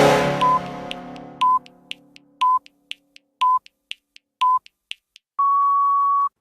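A sustained goal-horn blast dying away, then an electronic countdown timer: faint ticks with five short beeps a second apart, ending in one longer beep.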